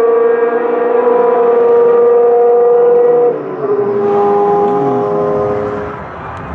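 Racing car engine held at high revs, a steady high note that steps down in pitch about three seconds in, with another engine note briefly rising and falling, then the sound fades near the end.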